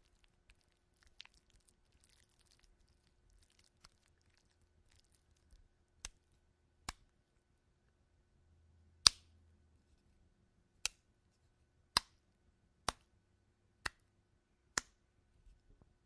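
Sharp wet slaps, eight of them, beginning about six seconds in and coming roughly a second apart, the third the loudest. Faint small clicks come before them.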